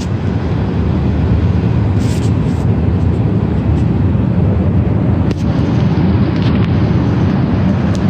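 Steady roar of engine and airflow noise inside the cabin of an Airbus A380 in flight, with a few faint clicks.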